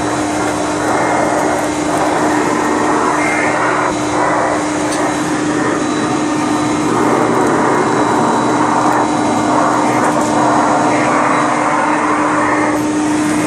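Hoover Conquest direct-air vacuum cleaner running through an attachment: a steady motor hum under a rush of air that swells and fades as the nozzle is worked.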